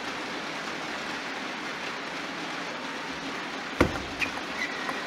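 Steady hiss of hall ambience, then about four seconds in a quick run of sharp clicks of a table tennis ball struck by the bats and bouncing on the table, the first click the loudest.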